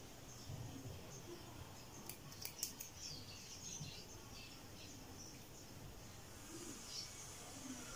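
Small thread clippers snipping stitches to open a seam edge on a cotton garment piece: a few faint, quick snips about two seconds in, over quiet room tone.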